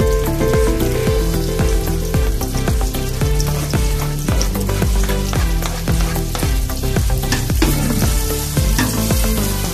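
Sliced onions sizzling as they fry in hot oil in a metal pot, stirred now and then, with a steady hiss throughout. Background music with a bass line plays over it.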